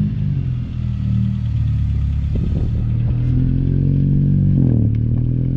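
Car engine under way: its note settles, climbs steadily as the car accelerates, then drops suddenly near the end at a gear change and holds.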